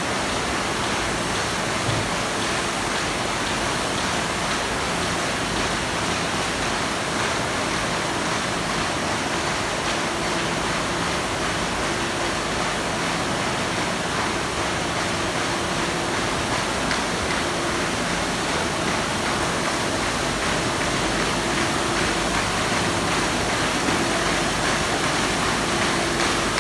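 Steady, dense whir and clatter of paper-folding and collating machinery running continuously in a bindery workshop, with a faint intermittent hum under it.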